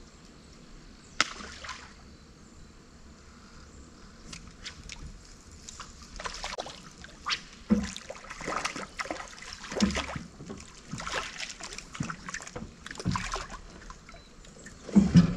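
A hooked fish splashing and thrashing at the water's surface beside a small boat as it is pulled in, in irregular splashes from about six seconds in. There is a sharp knock about a second in and a loud thump near the end.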